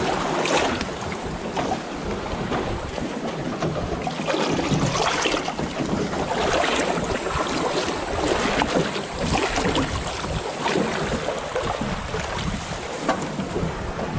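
Small boat under way across open water: wind buffeting the microphone over a steady rush of water, with frequent short splashes and slaps along the hull.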